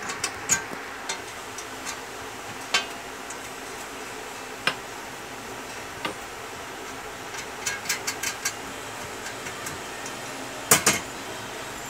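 Small metal clicks and clinks of nuts, washers and a wrench against the iron foot pedal of a sewing-machine stand as bolts are fitted and tightened. A quick run of clicks comes about two-thirds through, and the loudest, a pair of clanks, near the end.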